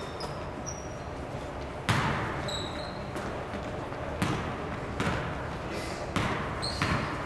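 Basketball bouncing on a hardwood gym floor, several sharp bounces about a second apart that echo around the hall, with short sneaker squeaks.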